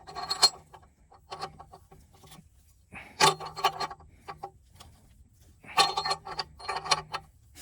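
Metal tools and parts being handled at the newly fitted oxygen sensor: four short bouts of rapid clicking, rattling and scraping.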